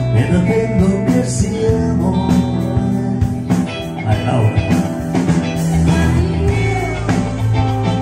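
Live band music through a PA: guitar backing with vocals sung into microphones, over a steady beat.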